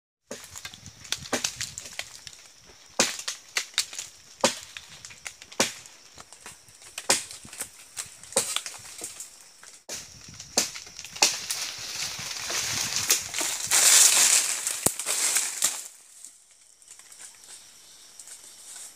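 Tree branches and leaves rustling, with many sharp twig-like cracks, as a person climbs through a tree canopy. Around the middle a louder, longer stretch of rustling builds up and stops about three seconds from the end.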